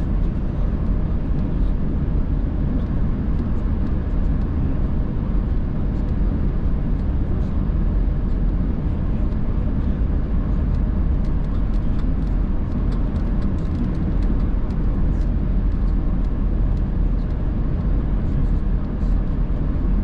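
Steady road and engine noise of a car driving, heard inside the cabin: a low, even rumble of tyres on wet pavement and the engine.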